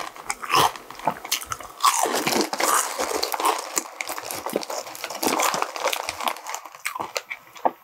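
A 3D Doritos Three Cheese chip, a puffed corn snack, bitten and chewed: a dense run of crisp crunches that thins out near the end.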